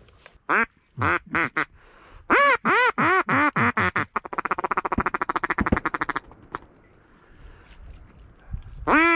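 Hand-blown duck call sounding hen-style quacks: a few single quacks, then a run of about six, then a fast chattering feed call of rapid short notes for about two seconds. More quacks start near the end.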